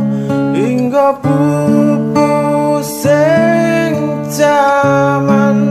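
A man singing a slow Javanese kidung line in long, held notes over a fingerpicked acoustic guitar playing sustained bass notes and chords.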